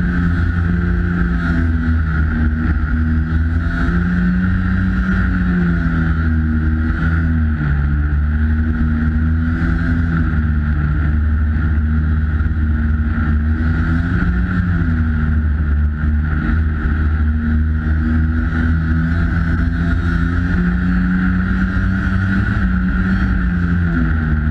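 Polaris 340 Classic snowmobile's two-stroke engine running steadily under way, its pitch rising and falling a little as the sled moves along.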